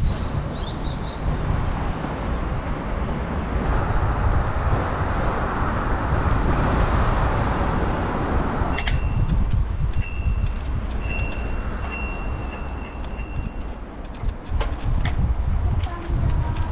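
Wind buffeting the microphone and tyre rumble from riding a bicycle, then a bicycle bell rung several times in quick succession from about nine seconds in, for about four seconds.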